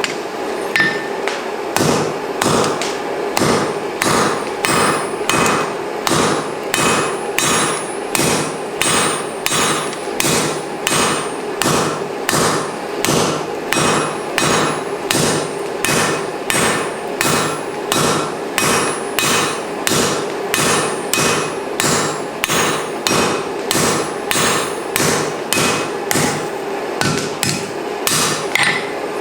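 Hammer striking hot mild steel on an anvil in a steady rhythm of about two blows a second, with the anvil ringing between blows: the corners of the bar being forged down into a taper.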